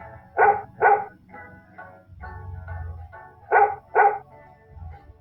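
Dog barking: two pairs of quick barks about three seconds apart, over soft background music.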